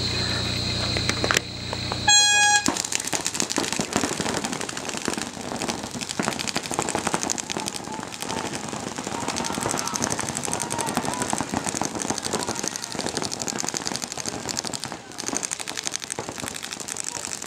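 A short horn blast about two seconds in signals the start of the point, then many paintball markers fire at once in rapid streams of pops that keep going without a break.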